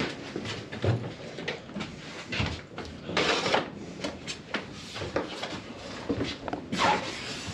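Plywood beam template being carried and handled, with irregular knocks and scrapes of wood against wood. There is a longer scrape about three seconds in and another near the end.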